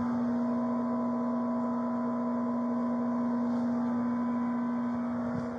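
A steady hum with one strong fixed low tone and fainter higher tones, unchanging and easing off slightly near the end.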